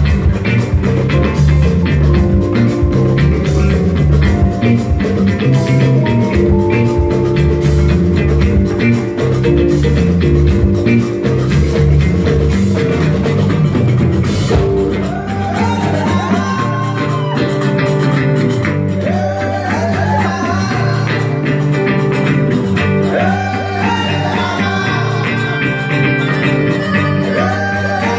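Live rock band jamming with several electric guitars over hand drums. About halfway through, the bass thins out and a lead guitar plays bending, gliding phrases.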